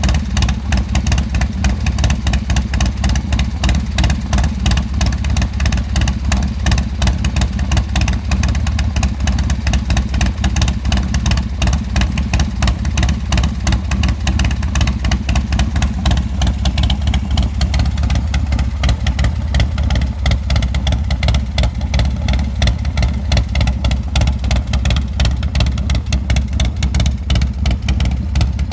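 A 2000 Titan Indy 500 Limited Edition motorcycle's 1833cc four-stroke 45-degree V-twin idling steadily, with an even, rapid pulse from the exhaust and no revving.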